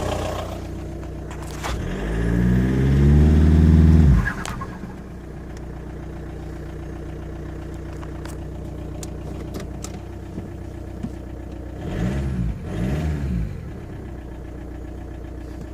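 2001 VW Jetta TDI's 1.9-litre four-cylinder turbodiesel idling, revved up once for about two seconds and dropped sharply, with a brief turbo flutter as the revs fall. Near the end the throttle is blipped twice more in quick succession.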